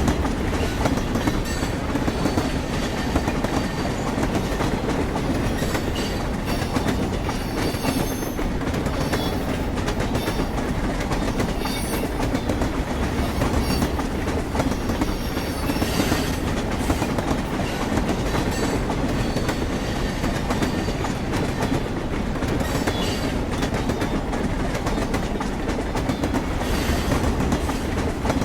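Train wheels running on the rails, clanking and grinding steadily, with short high-pitched screeches every few seconds.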